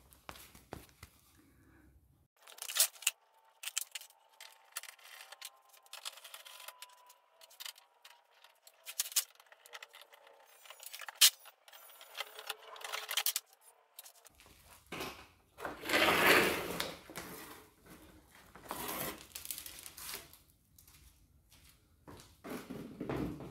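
Plastic engine undertray being unfastened and pulled off from under a van: sharp clicks and knocks of the fasteners and tools, with plastic scraping and rattling, and a longer, louder scraping rush about two-thirds of the way through as the shield comes away.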